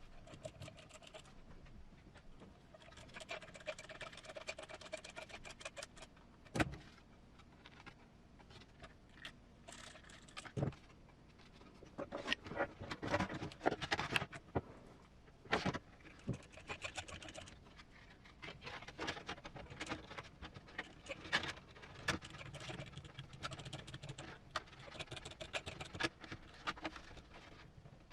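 Hard plastic RC truck body parts being handled and fitted by hand: a steady scatter of small clicks, rattles and taps, with a few sharper knocks.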